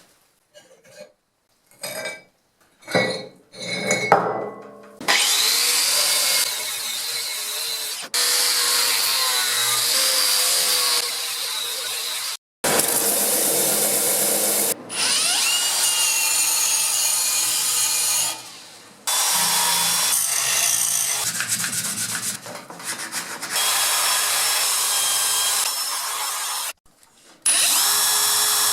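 A rotary power tool scouring rust from iron, in several long runs of steady scraping noise that start and stop abruptly. A rising whine marks the tool spinning up about fifteen seconds in and again near the end; the first few seconds hold only a handful of short scrapes.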